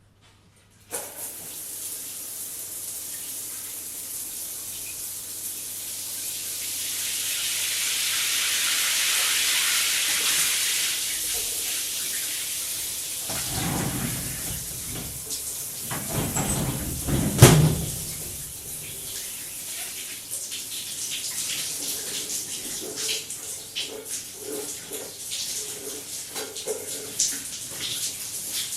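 Shower running with a person washing under it. The water comes on suddenly about a second in as a steady spray that grows louder. Then the splashing turns heavier and uneven, with a sharp knock a little past halfway, and choppy splashing follows.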